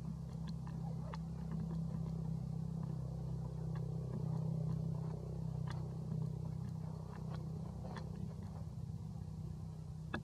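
A steady low mechanical hum, like a distant running engine, with scattered faint clicks over it.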